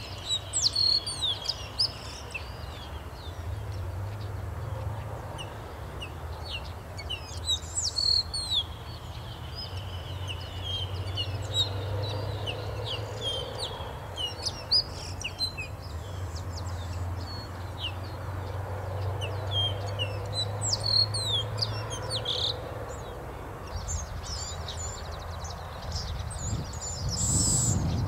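A chorus of bay-winged cowbirds singing: many overlapping chirps and whistled phrases, each bird at its own pace, over a faint low hum.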